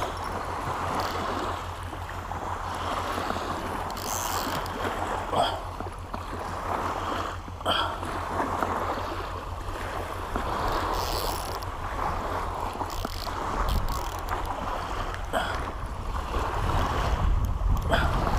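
Small waves washing on a sandy beach, with wind buffeting the microphone and growing stronger near the end. A Shimano Calcutta Conquest BFS baitcasting reel is being cranked, with a few sharp clicks of handling.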